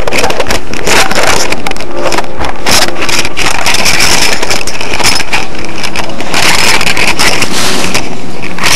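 Camera handling noise: loud, continuous rubbing, scraping and knocking on a small camera's built-in microphone as it is carried, turned over and repositioned by hand.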